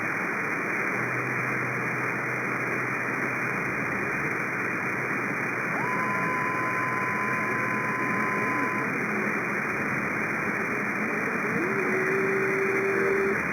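CB radio receiver on channel 37 single sideband putting out steady static hiss between transmissions. A steady higher whistle comes in about six seconds in and holds for about three seconds, and a lower steady whistle sounds briefly near the end.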